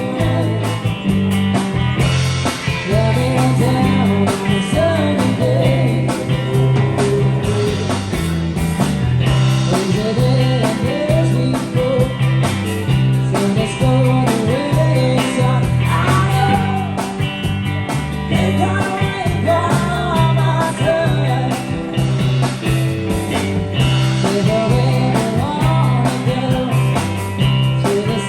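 Rock music with a stepping bass line, guitar and a wavering lead melody.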